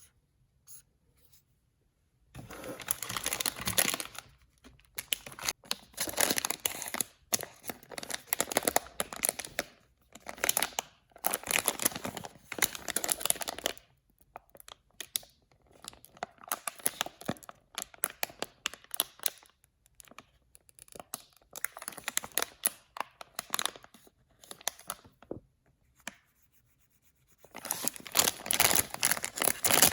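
Packaging being torn open and crumpled by hand, in irregular rustling stretches of a second or two with short pauses. It starts after about two seconds of near quiet with a few light clicks.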